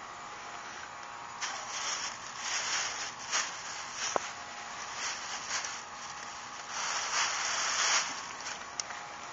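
Thin plastic grocery bag rustling in irregular bursts as it is handled, loudest near the end, with a few sharp clicks.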